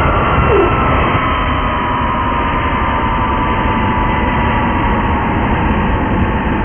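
Jet aircraft engines running, a loud steady rumble with a whine that slowly falls in pitch.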